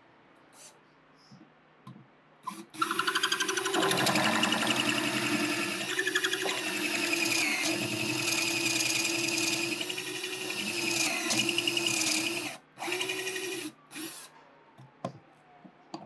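Power drill boring a hole into a palo santo pen blank clamped in a drilling jig. The drill starts about three seconds in and runs steadily for about ten seconds, stops, then runs briefly once more, with a couple of short blips near the end.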